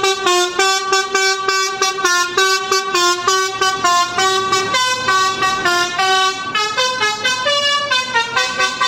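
Basuri multi-tone bus horn on an intercity bus playing a quick tune of short notes, about three to four a second, stepping up and down in pitch.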